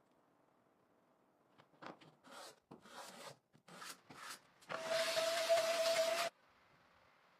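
Work on a steel knife blank made from an old bearing part: about six short rasping strokes, then a power tool runs against the metal for about a second and a half with a steady whine over a hiss, and cuts off suddenly.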